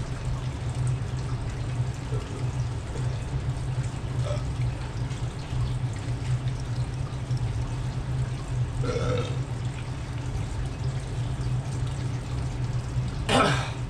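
A person burps loudly once near the end, after hot-pepper popcorn, over a steady low hum and faint water trickling in the room.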